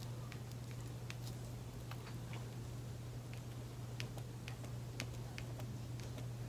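Light, irregular ticks of a pen tip dabbing little dots onto glossy photo paper, over a steady low hum.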